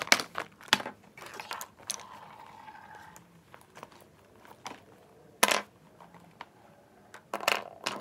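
Rummaging through a crinkly plastic makeup pouch and a leather handbag, with sharp clacks of lipstick tubes and gloss bottles being set down on a wooden table. The clacks come singly and scattered, with a louder one about five and a half seconds in and a quick cluster near the end.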